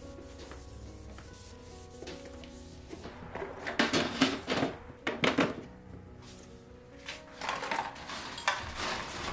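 Plastic storage containers being handled and slid across a metal mesh shelf: bursts of scraping and rubbing, loudest between about three and six seconds in, with a few more near the end, over soft background music.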